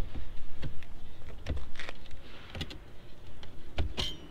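Hard plastic clicks and knocks from handling an Audi S3 side mirror's glass and its plastic backing plate against the mirror housing after the glass has been pulled free. There are several separate, irregular clicks.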